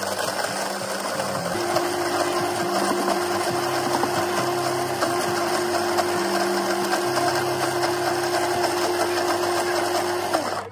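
Commercial countertop blender running at high speed, blending ice with a powdered drink mix, then cutting off suddenly near the end. A steady hum comes in about a second and a half in.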